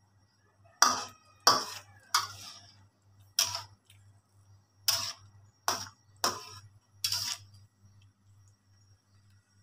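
Slotted metal spatula scraping and clinking against a wok while stirring chicken pieces in boiling water: eight strokes, roughly one a second, the two near the start the loudest.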